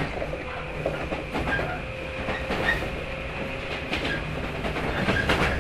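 Running sound heard on board a JR 115 series electric multiple unit motor car (MoHa 115-362): a steady rumble of the moving train with a faint hum, and sharp clacks of the wheels over rail joints every second or so, some in pairs.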